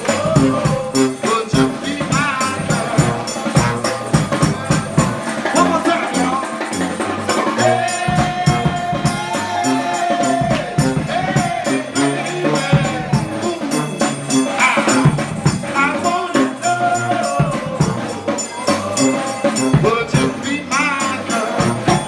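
New Orleans brass band playing live: horns over tuba and a steady percussion beat, with tambourine shaking.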